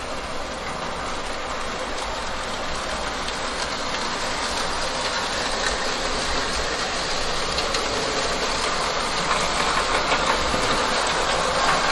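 Gauge 0 (1:45 scale) model train running along the layout's track: a steady rolling rattle of wheels on rail that grows gradually louder.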